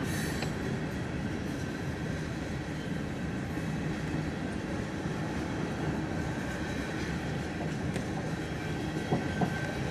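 Coal hopper cars of a freight train rolling past: a steady rumble of steel wheels on rail, with two sharp clacks near the end.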